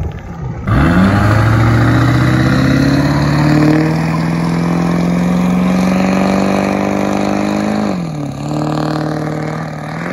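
Pickup truck's engine accelerating hard away, its pitch climbing steadily; near the end the revs drop briefly at a gear change, then climb again.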